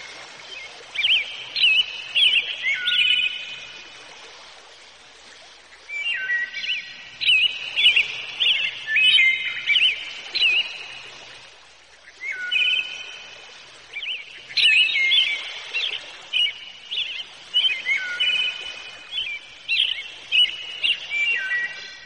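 Birds singing: quick, whistled chirping phrases with sharp pitch glides, coming in three spells over a faint steady hiss.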